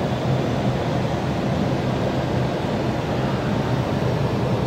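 Steady in-flight cockpit noise of an Airbus A321 descending on approach: an even rushing with a low hum under it.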